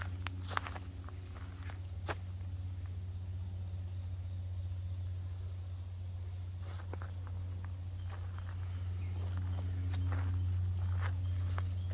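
Insects trilling steadily over a steady low hum, with scattered footsteps on the trail, a few near the start and more through the second half.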